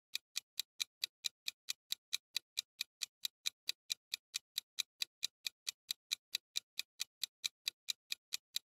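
Ticking-clock sound effect marking a quiz countdown timer: short, sharp, even ticks at about four to five a second.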